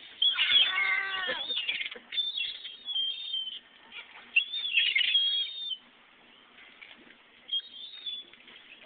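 Birds calling and chirping in short bursts: a longer call with several wavering tones in the first second and a half, then bouts of high chirps with quiet gaps between them.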